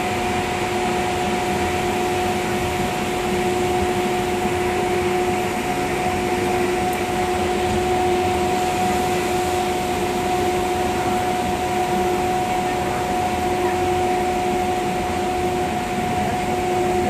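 Monorail train running at a steady speed: a constant mechanical hum with a steady two-tone drone over a rushing noise.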